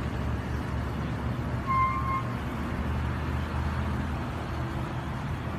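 Steady low traffic rumble, with one short car-horn toot about two seconds in.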